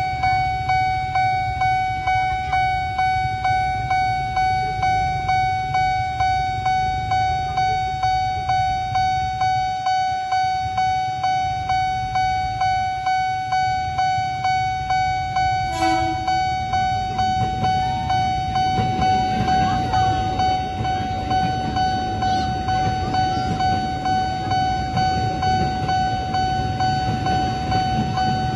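Alkmaar-brand railway level-crossing siren sounding a quick, evenly pulsing alarm tone throughout. About 16 s in a train horn gives a brief toot, and from about 19 s a train rumbles through the crossing under the alarm.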